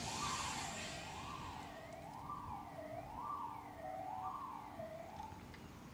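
Distant emergency-vehicle siren, which the recordist takes for a police car, wailing up and down about once a second and dying away about five and a half seconds in. A brief rush of hiss is heard at the start.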